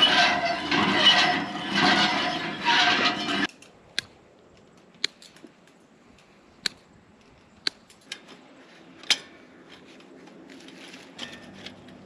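Loud rattling and scraping of hinge-joint wire mesh being run out over the ground behind a ute, cutting off suddenly after about three and a half seconds. Then quiet, with half a dozen sharp single clicks and clinks of fence wire being worked by gloved hands at a steel post.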